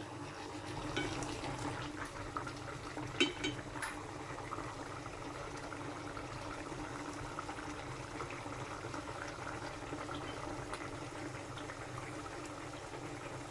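Liquid bubbling steadily in a cooking pot, with a few light clicks about three to four seconds in.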